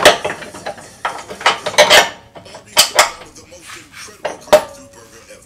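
Steel suspension arm and bolt clanking against the frame bracket as the arm is worked into place by hand: a handful of sharp metallic knocks and clinks. The last one, a little after four seconds in, rings briefly.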